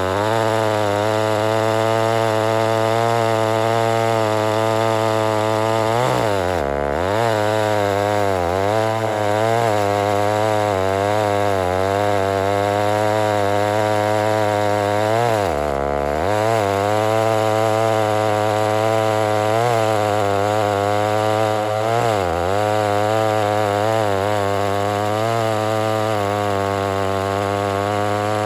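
Homelite Super XL-923 82cc two-stroke chainsaw running steadily and loudly during a test cut. Its pitch dips briefly and comes back three times: about a quarter of the way in, a little past halfway, and about three-quarters through.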